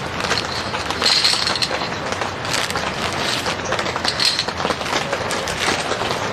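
Rain pattering steadily on a tent, with light clinks and taps of thin snack sticks being set down on a metal plate.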